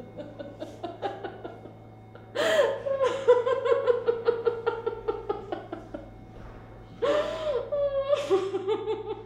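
A woman sobbing hard: quick, rhythmic gasping breaths, broken by two loud, long wailing cries that slowly fall in pitch, one about two seconds in and one about seven seconds in.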